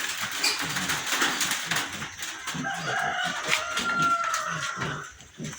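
A flock of chickens clucking, with a rooster's crow drawn out from about halfway through.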